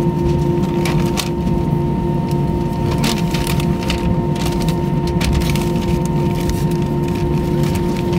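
Cabin noise inside an Airbus A320-232 taxiing: a steady engine hum and rumble with two constant tones, plus scattered small clicks and rattles.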